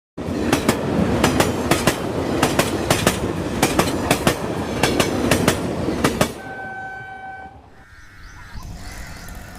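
Shatabdi Express passenger train running past at speed, its wheels clattering over rail joints in a fast, uneven run of sharp clicks. The clatter stops abruptly about six seconds in, and then a single steady horn note sounds for about a second.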